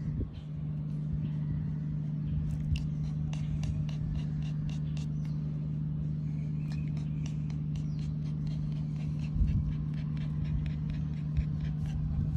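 A steady low mechanical hum, with many light, sharp clicks and ticks from about two seconds in.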